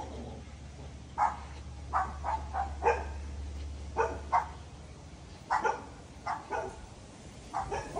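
A dog barking repeatedly in short barks, often two or three close together, about one bark group every second.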